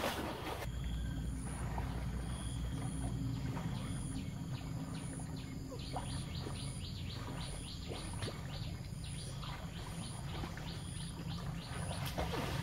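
Steady low rush of a fast-flowing, flood-swollen river under rapid, evenly repeated high chirping of birds. Water splashes from a person swimming come near the end.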